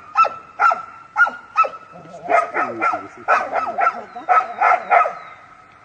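A large dog barking repeatedly and rapidly, about two to three barks a second, stopping about five seconds in.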